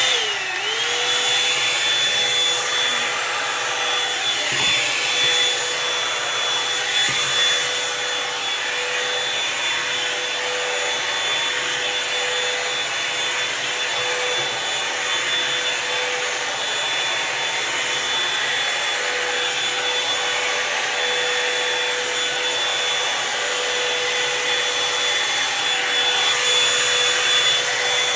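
Revlon One Step hair dryer brush switched on and running: its motor whine dips and settles to a steady pitch within the first second, then runs steadily over the rush of blown air.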